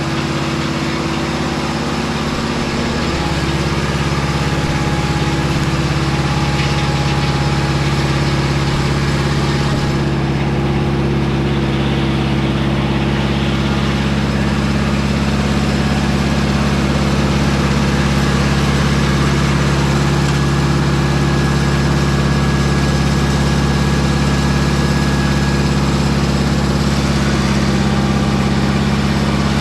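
Mobile Dimension circular sawmill's engine running steadily, its tone shifting slightly about three seconds in.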